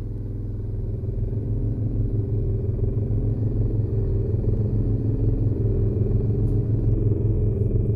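Low droning soundtrack music with a pulsing bass about twice a second, slowly swelling louder.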